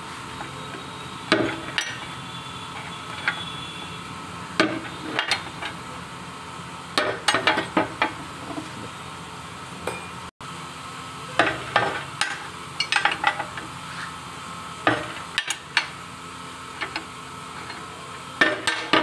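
Metal clanks and clinks from hand-bending square iron bar on a steel bench jig: the lever bar, bar stock and jig pins knock against each other and the bench in short clusters of sharp, ringing hits every second or two, over a steady hum.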